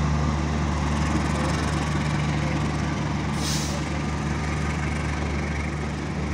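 Diesel-hauled passenger train rolling past: steady wheel-and-rail noise from the cars over a deep, even engine hum, slowly fading as it moves away. A short hiss cuts in about halfway through.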